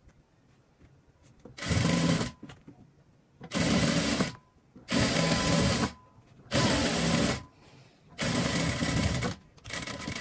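Sewing machine stitching in short runs of about a second each, stopping and starting about six times.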